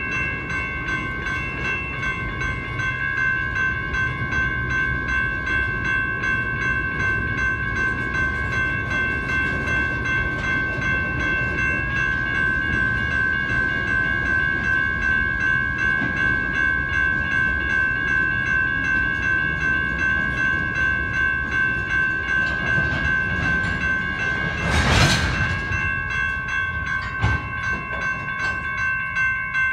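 Railroad crossing bell ringing steadily while freight cars roll across the crossing, their wheels rumbling on the rails. A short, loud burst of noise breaks in a few seconds before the end.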